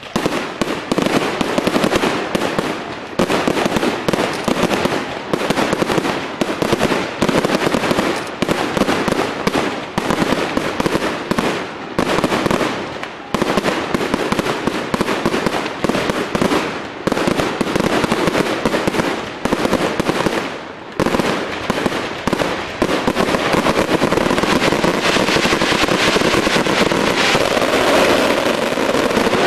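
Fireworks going off in a dense barrage of rapid bangs and crackles that starts abruptly. The barrage pauses briefly about two-thirds of the way through, then becomes an almost unbroken crackle.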